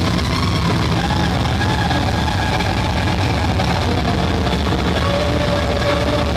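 Loud live noise music: heavily fuzzed electric guitar and a pedalboard of effects making a dense, steady wall of distorted drone. A wavering tone drifts through it early on, and a steady held tone comes in about five seconds in.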